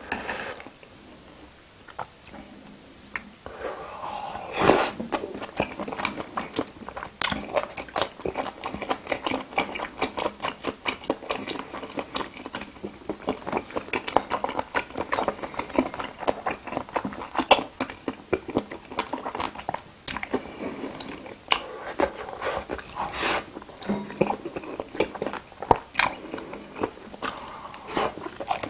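Close-miked eating of spicy seafood boil: a steady run of crunchy bites and chewing that starts about three seconds in, with a few sharper, louder crunches along the way.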